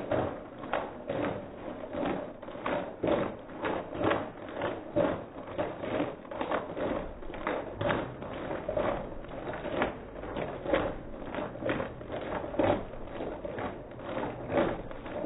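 Liquid sloshing and slapping inside a plastic shaker bottle shaken hard by hand, in a steady quick rhythm of a few shakes a second.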